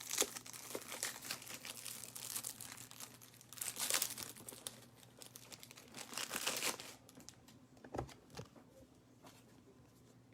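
Thin plastic card sleeves crinkling as baseball cards are handled and slid into them, in bursts for about seven seconds. A single light knock follows about eight seconds in.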